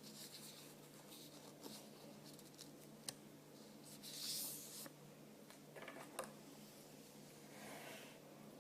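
Faint handling of small plastic toys and wrappers: light clicks and taps, with a brief rustle of packaging about four seconds in, over a steady low hum.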